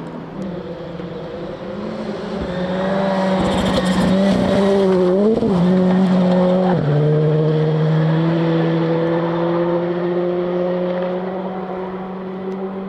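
Rally car on a gravel stage coming closer under hard throttle, loudest about halfway through as it passes. Its engine note wavers briefly, drops sharply about seven seconds in as it changes up a gear, then climbs steadily again as the car pulls away and fades.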